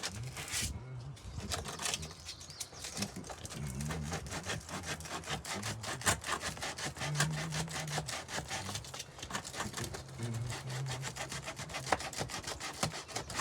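Hand tool rubbing back and forth over the brick mold and its Bondo patch in a quick, steady rhythm of abrasive strokes, as when the filler is carved and shaped.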